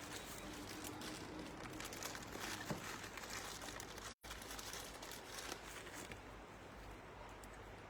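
Faint rustling and crinkling with scattered small clicks, as of things being handled. The sound cuts out completely for a split second about four seconds in.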